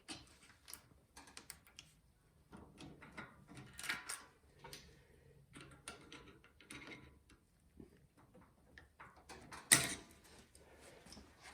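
Faint, scattered clicks, taps and rustling of hands and tools working the fuel line off a snowblower carburetor, with one sharper knock near the end.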